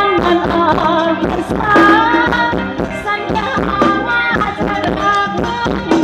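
Thai ramwong dance music played by a live band: drums keeping an even beat under a melody line.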